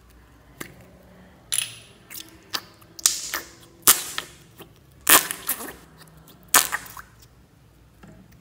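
Slime being opened and squeezed out of a small plastic soda-can-shaped tub, giving a run of sharp pops and short crackles as air pockets burst.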